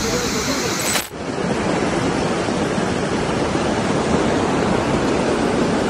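Muddy floodwater rushing, a steady loud noise. It breaks off sharply about a second in and gives way to a similar rush of floodwater.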